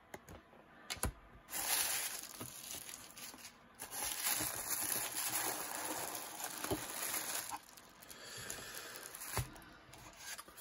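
Black tissue paper crinkling and rustling as hands fold it back from a wrapped pack of trading cards, loudest for several seconds near the start and then softer, with a few sharp clicks of handling.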